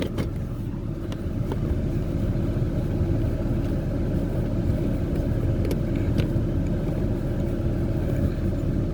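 Steady low vehicle rumble, with a few faint clicks from wiring being handled.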